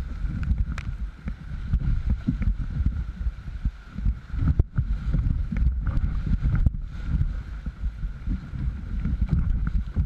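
Canoe running river rapids: rushing, churning water and a fluttering low wind rumble on the microphone, with paddle strokes and a few sharp knocks.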